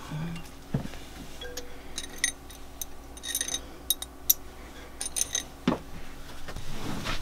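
Irregular light metallic clinks and ticks as steel push rods are pulled out of a Northern Lights 12 kW generator engine one by one during teardown.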